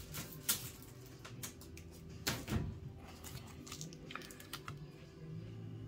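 A few light clicks and knocks of small items being handled on a workbench, the loudest about two and a half seconds in, over a low steady hum.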